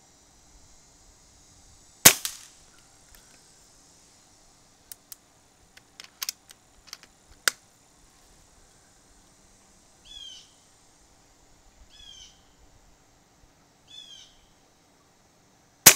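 Two shots from a .22 PCP air rifle, the AirVenturi AvengeX, each a sharp crack: one about two seconds in and one near the end. Between them comes a run of small metallic clicks as the action is cycled and the next pellet loaded. In the quiet before the second shot a bird gives four short chirps a couple of seconds apart.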